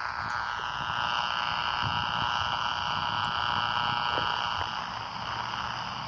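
A 440 MHz AM radio receiver hissing and buzzing with power-line interference noise picked up on a beam antenna: a steady rasping buzz over static that swells and then eases off near the end.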